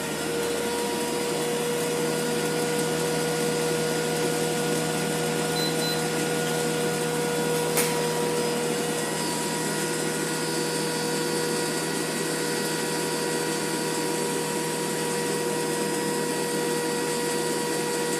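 Webasto HL90 diesel air heater running steadily just after start-up, with its flame established and warming up: a steady blower-fan and burner whirr with a constant hum tone. A single short click about eight seconds in.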